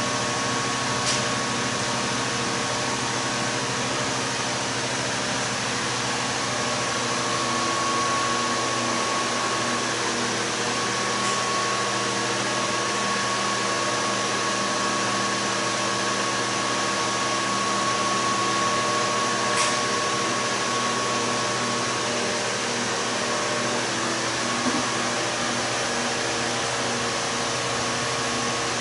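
Steady machine hum and hiss, with a faint high whine and a few faint ticks.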